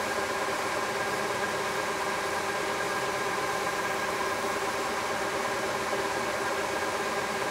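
Shop Fox W1738 wide belt sander running with its variable-speed conveyor feed belt moving: a steady mechanical hum with a constant whine over a hiss.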